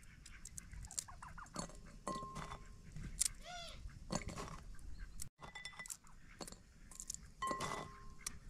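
Walnut pieces tapping and clinking into a glass bowl, with many small clicks and two short ringing clinks of the glass. A short call from an animal or bird, rising and falling, sounds about three and a half seconds in.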